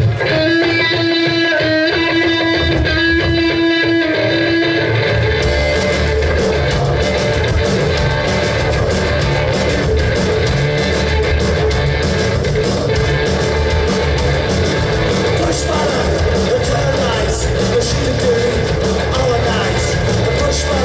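Post-punk rock band playing live: a guitar rings out a few held notes alone for about the first five seconds, then the drums and the rest of the band come in and play on steadily.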